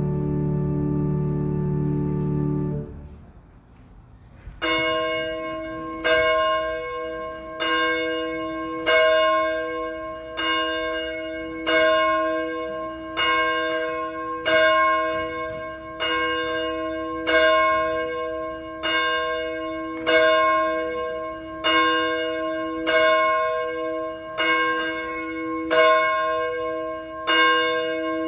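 A held chord of music stops about three seconds in. After a short pause a single church bell tolls steadily, one strike about every second and a half, each ringing on into the next.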